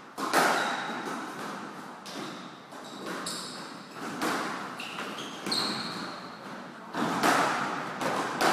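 Squash rally: the rubber ball smacking off rackets and the court walls in sharp strikes about a second apart, with short squeaks of sneakers on the wooden floor.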